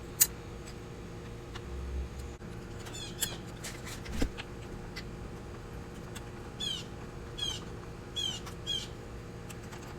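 Wrenches working the chain adjuster nut and bolt on a motorcycle swingarm: a sharp metal click, a knock, and a series of short, high, falling squeaks.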